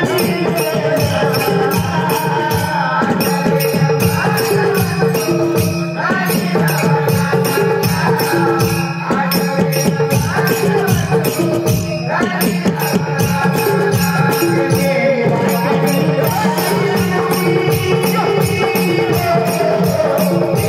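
Live Konkan Naman folk music: male voices singing a melodic line, with steady rhythmic jingling percussion and a drum beat, played through a PA system.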